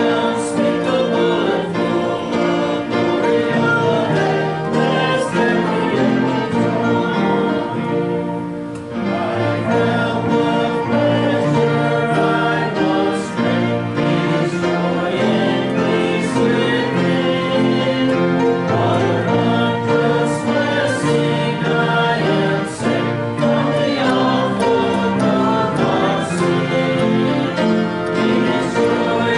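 Church congregation singing a gospel hymn together with instrumental accompaniment, briefly softer about eight seconds in.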